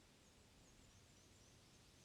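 Very faint forest ambience: a small bird twittering in a string of short, high, thin notes over a low, steady background hiss.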